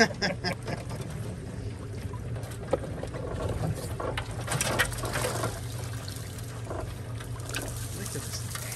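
Honda outboard idling steadily beside the boat while water trickles and splashes off a wire-mesh crawfish trap being pulled from the water and shaken out into the sorting tray, with louder rustling splashes about halfway through and again near the end.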